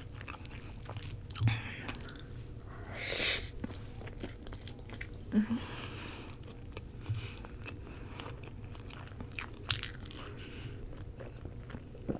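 Close-miked chewing of roti: soft mouth smacks and scattered small clicks, with a short breathy rush about three seconds in.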